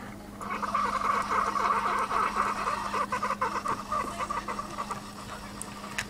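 Keurig single-serve coffee maker brewing: a burst of gurgling and sputtering starts about half a second in and fades toward the end, over a steady low hum from the machine.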